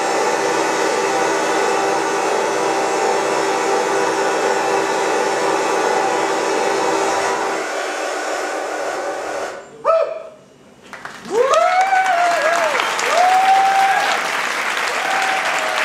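Dense, steady droning live music with many held tones, which fades out about eight to nine seconds in. After a brief pause the audience breaks into applause and cheering.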